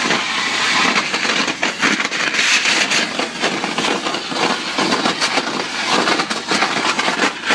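Ultra-high-pressure water jet (2500 bar, 20 l/min) blasting concrete in hydrodemolition: a loud, continuous hiss shot through with rapid irregular crackling.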